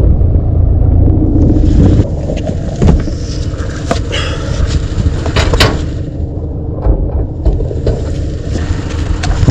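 Wind buffeting the camera microphone as a heavy low rumble, loudest in the first couple of seconds, with scattered rustles and sharp knocks from a neoprene wetsuit being peeled off.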